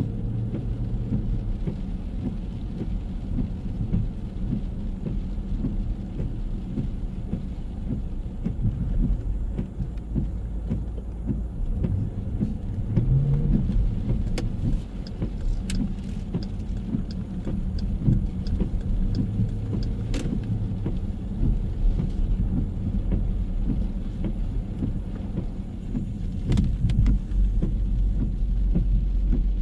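Steady low rumble of city street traffic, with engine tones from passing cars coming and going and a few sharp clicks.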